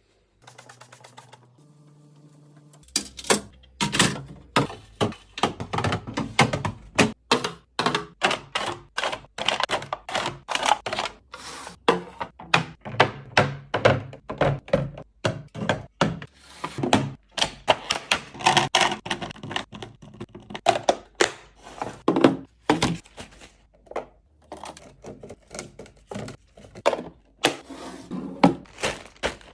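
Rapid, irregular series of knocks, clicks and clatters as containers, bottles and packages are set down and slotted into a fridge one after another, starting about three seconds in.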